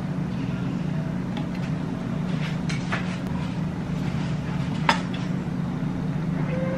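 A steady low hum, with a few light clicks of a metal scoop and spoon against a glass bowl, about three seconds in and again about five seconds in.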